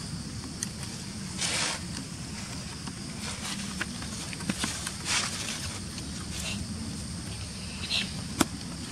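Outdoor ambience with a steady high-pitched insect drone over a low rumble, broken by a few short rustles and sharp clicks.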